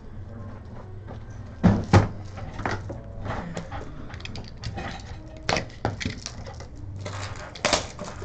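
Trading cards and plastic card holders handled on a table: scattered sharp knocks and clacks with light rustling, the loudest two knocks close together about two seconds in, over a steady low hum.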